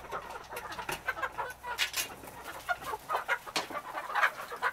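A flock of chickens clucking, many short, irregular calls overlapping.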